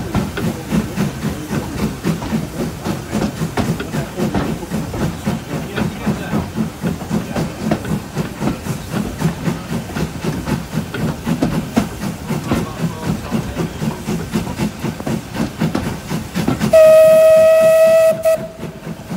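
L&Y Class 27 0-6-0 steam locomotive 52322 pulling away, its exhaust beating in a steady rhythmic chuff, heard from a carriage behind the engine. Near the end the engine's steam whistle sounds one loud, steady note for about a second and a half, then stops suddenly.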